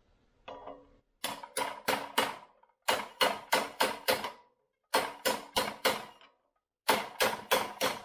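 Steel hammer striking a socket held on the bearing's outer race, driving a front wheel bearing into a motocross wheel hub: sharp metallic ringing strikes in four quick bursts of four or five blows, about three a second, with short pauses between bursts.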